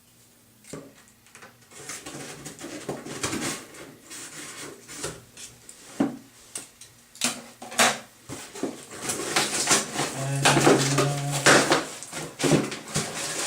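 A cardboard shipping box being opened and its packaging handled: irregular rustling, tearing and knocks that get busier and louder in the second half. A short low-pitched sound cuts in about ten seconds in.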